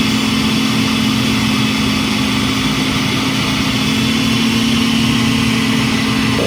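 Countertop blender running steadily at speed, blending a smoothie, with a loud, even motor hum.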